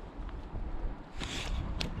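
Handling noise from an angler returning a carp: a low rumble of wind on the microphone, a short rustle a little past a second in, and a sharp click near the end.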